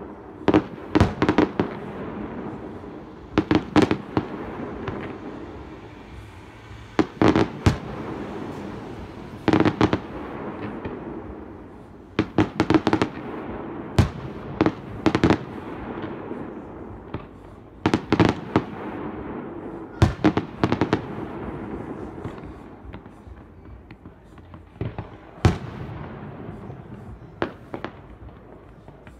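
Fireworks display: shells bursting in sharp bangs, often two or three in quick succession, every second or two, over a continuous noisy rumble between the bursts.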